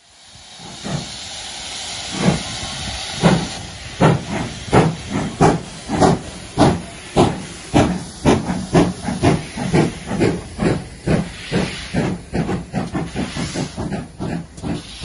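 Southern Railway U class 2-6-0 steam locomotive 31806 starting away with a train. Its cylinder drain cocks hiss at first, then its exhaust beats come faster and faster, from about one a second to three or four a second as it gathers speed.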